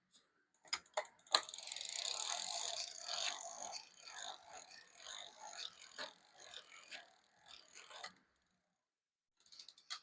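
Rapid mechanical ratcheting clicks while a bicycle pedal is fitted with a pedal wrench. The clicking is densest for about three seconds starting a second in, then thins to scattered clicks that stop near the end.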